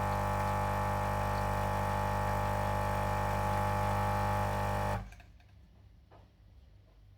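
Saeco Odea Go coffee machine running with a steady buzz, which cuts off abruptly about five seconds in; a couple of faint clicks follow.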